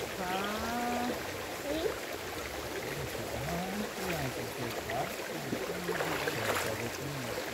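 Shallow river water flowing and trickling over rocks, a steady rushing, with quiet voices talking over it.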